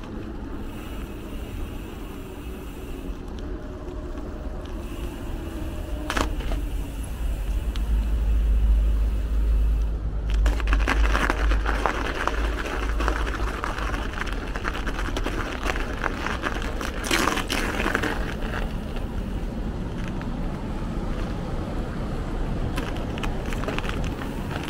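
Street traffic and road noise heard from a moving bicycle. A deep rumble swells in the middle, followed by a rougher, crackling stretch.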